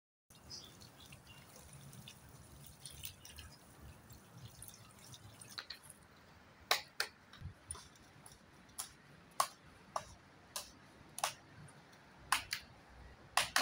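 Water from a jet pump's open outlet splashing onto the ground, faintly. From about six seconds in comes a string of sharp ticks, roughly one to two a second, while the PVC outlet pipe and its union are being fitted.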